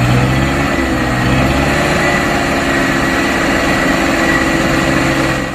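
Truck engine idling steadily, a low even rumble with a faint high whistle, cutting off suddenly at the end.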